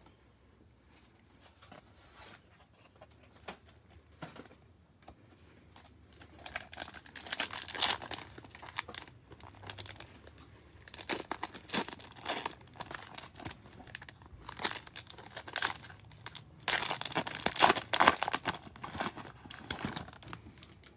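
A trading-card pack wrapper being torn open and crinkled by hand, in repeated bursts of crinkling from about six seconds in, loudest near the end. Before that, only faint light taps of cards being handled.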